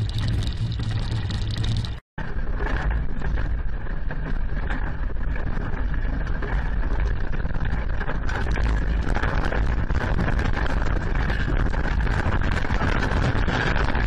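Steady low rumbling and rattling noise from a camera shaking in a magnitude 7.3 earthquake. It drops out for an instant about two seconds in.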